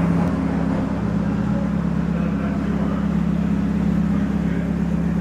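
Steady low mechanical drone of an engine or motor running without change.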